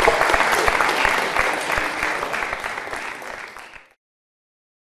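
A crowd applauding, a dense patter of many hands clapping that fades away near the end.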